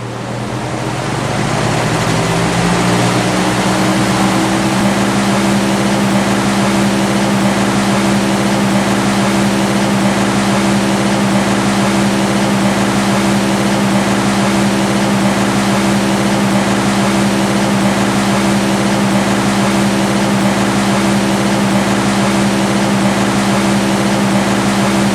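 Old electric box fan spinning up to speed over the first few seconds, its motor hum rising in pitch, then running steadily with a constant hum and the rush of moving air.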